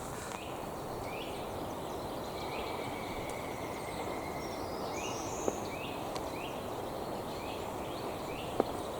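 Small birds calling: a series of short rising chirps and one longer held whistle, over a steady outdoor background noise, with two faint clicks.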